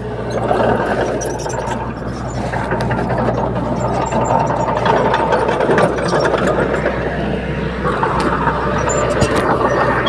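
Heavy diesel engine of earthmoving machinery running steadily, with scattered sharp clanks and clicks over it.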